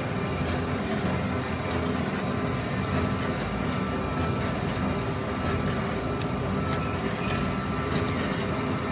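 Steady mechanical drone of foundry machinery running, with a low hum and a few faint light clinks of metal.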